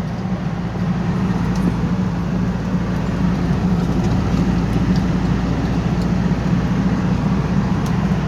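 Steady drone of a vehicle engine running, with a constant low hum and even road-type noise.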